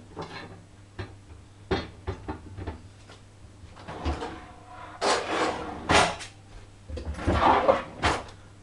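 Kitchen prep handling sounds: a few light knocks of vegetables and utensils on a wooden cutting board and bowl, then louder bumps and rustling in the second half.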